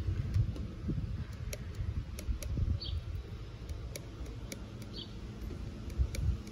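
Small plastic beads clicking and ticking against each other and a clear plastic tube as they are poured in a few at a time. A short high chirp repeats every two seconds or so.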